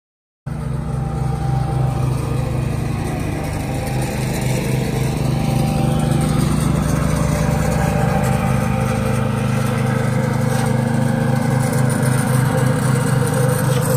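Small petrol engine running steadily at a constant speed, with a fast, even throb; it starts abruptly about half a second in.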